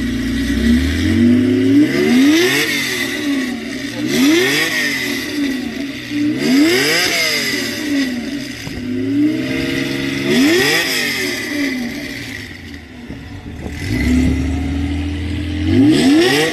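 Air-cooled Porsche 911's flat-six engine being free-revved in repeated sharp blips, each rising and falling over about a second, roughly every two seconds, settling back to idle in between. There is a longer pause before a last rev near the end.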